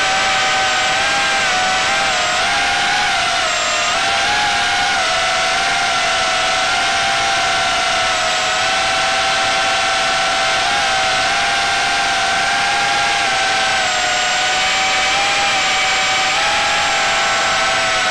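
Small electric motor whining steadily with a high tone whose pitch wavers slightly up and down.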